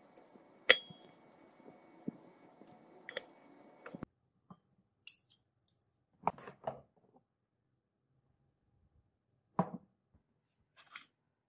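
Scissors snipping small scraps over a glass beaker, with sharp clicks and a short ring as pieces hit the glass, the loudest about a second in. After that, a few scattered clinks of glassware being picked up and set down.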